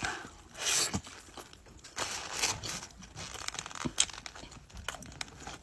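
Paper burger wrapper crinkling and tearing in a few short noisy bursts, with scattered clicks.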